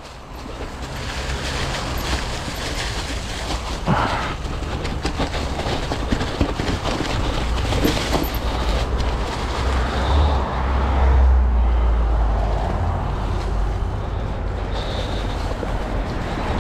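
A mountain bike rolling along a dirt trail strewn with dry leaves: the tyres crunch over leaves and ground while the bike rattles and knocks over bumps, and wind rumbles on the microphone.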